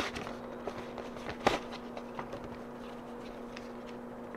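Paper envelopes and cards being handled: light rustling with a sharp crackle about a second and a half in, over a steady low hum.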